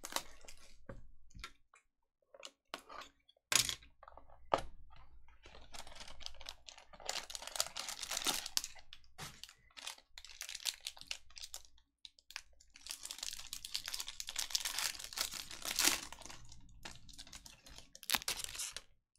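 Trading-card box packaging being torn and crinkled open by hand, with scattered sharp clicks and taps of handling. The longest crinkling comes in two stretches, a little past the middle and again near the end.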